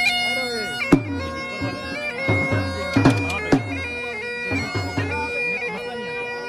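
Bagpipe-style reed music: a melody in long held notes over a steady drone, with irregular drum strokes whose low boom drops in pitch after each hit.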